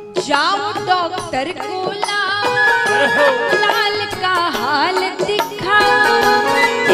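A woman singing a slow devotional melody in long, sliding ornamented phrases over instrumental accompaniment.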